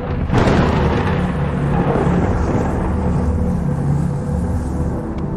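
Cinematic logo-reveal sound effect: a sudden booming hit about half a second in, followed by a deep, steady rumble.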